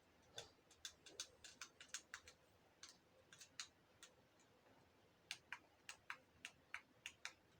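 Fidget toys being handled: a faint, irregular run of small sharp clicks, with a short lull about four seconds in before the clicking picks up again.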